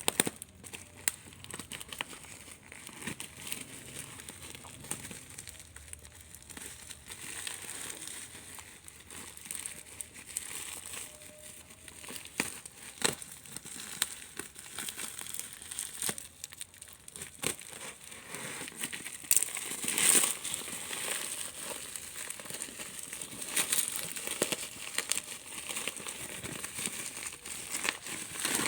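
Packaging being handled and unwrapped: irregular crinkling and rustling with many sharp crackles, louder for a stretch about twenty seconds in.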